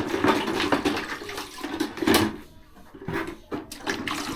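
Water splashing and pouring in uneven gushes, several surges one after another.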